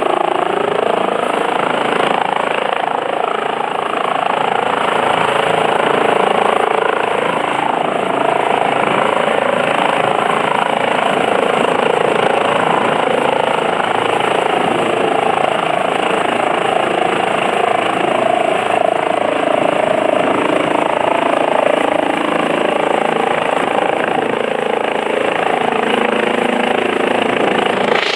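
Rescue helicopter's rotor and engine running steadily and loudly.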